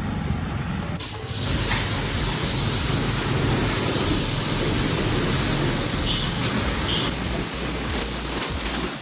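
High-pressure washer jet spraying water onto a motorcycle at a wash centre: a steady hiss that starts about a second in, over a low motor rumble.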